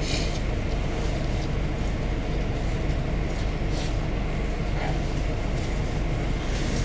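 GAZ-A64R42 Next minibus engine running with a steady low drone, heard from inside the passenger cabin, with the cabin's steady road and body noise over it.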